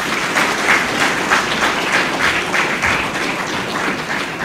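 A large audience applauding, a steady wash of many hands clapping.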